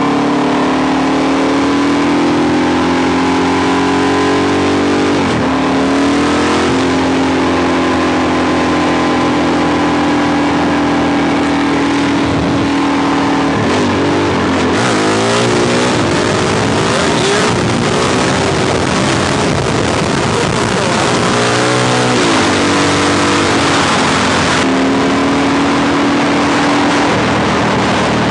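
A 2005 Suzuki DRZ400SM's single-cylinder four-stroke engine is under way on the road. The revs climb steadily, drop sharply about five seconds in, hold steady for a while, and then rise and fall rapidly in the middle stretch before settling again.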